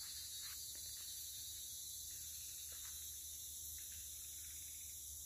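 Steady high-pitched drone of a tropical rainforest insect chorus, with a few faint rustles scattered through it.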